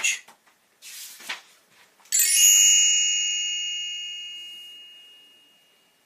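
A picture book's page turning with a soft swish, then a bright bell-like chime that rings and slowly fades away over about four seconds: the read-along's page-turn cue.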